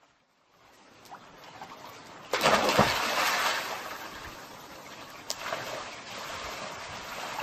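A child jumps into a swimming pool: a loud splash about two seconds in, then the water keeps sloshing and churning steadily while he swims underwater.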